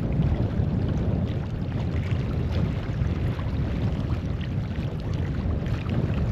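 Wind buffeting the microphone outdoors: a steady, gusting low rumble.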